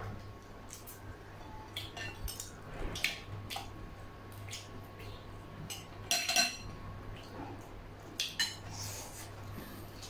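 Spoons and forks clinking and scraping against ceramic bowls and a metal tray during a meal, in scattered short clinks, with the loudest cluster about six seconds in.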